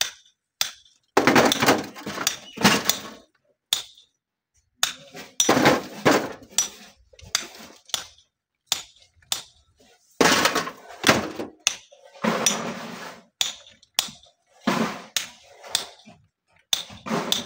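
Rocks and gravel knocking and clattering as they are loaded by hand into wheelbarrows: irregular sharp knocks, with a few longer rattling stretches.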